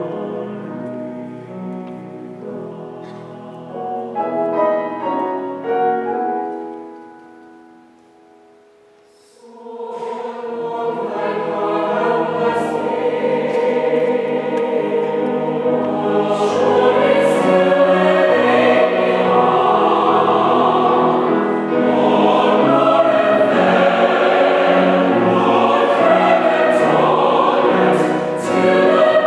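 Large mixed choir singing sustained chords. The phrase dies away about six seconds in, there is a hush of about two seconds, then the full choir comes back in and builds to a loud, sustained sound.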